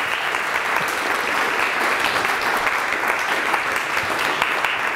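Audience applauding steadily at the end of a lecture, a dense patter of many hands clapping.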